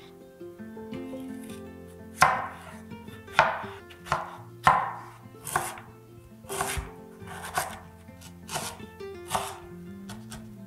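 Chef's knife slicing through galangal and lemongrass on a wooden cutting board: sharp knocks of the blade meeting the board, each with a short scrape. They start about two seconds in and come roughly once a second, the first few the loudest.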